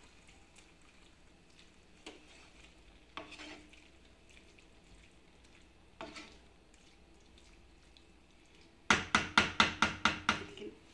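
Wooden spatula stirring pasta in a frying pan: a few soft scrapes, then near the end a quick run of about nine louder strokes against the pan, roughly five a second.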